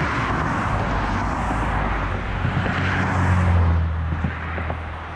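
A road vehicle driving past, its low engine hum and tyre noise swelling to a peak a little past halfway, then fading.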